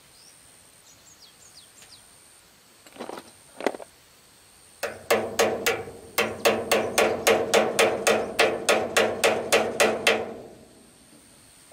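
A hand tool working metal on the steel wheel hub of a rice threshing machine: two soft knocks, then from about five seconds in an even run of sharp metallic clicks, about four a second, each with a ringing tone, stopping about ten seconds in.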